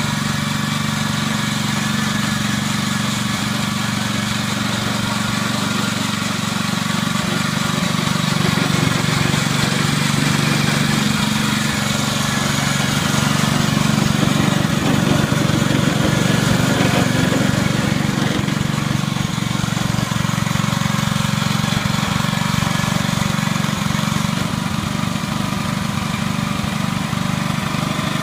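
Small single-cylinder petrol engine of a Mametora rubber-tracked mini dump carrier running steadily while the carrier is driven along at walking pace, a little louder in the middle.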